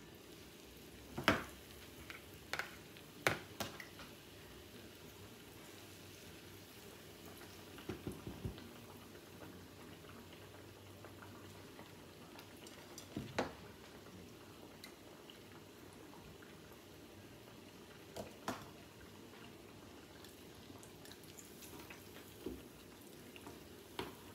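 Batter-coated Oreos frying in a small pot of oil heated to 350 °F: a faint, steady bubbling. It is broken by a few short, sharp clicks and taps of kitchen utensils.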